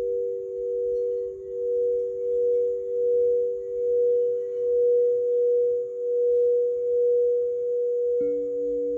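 Crystal singing bowls ringing together: two steady pure tones held throughout, swelling and fading about once a second. Near the end a third, lower-pitched bowl is struck and rings on.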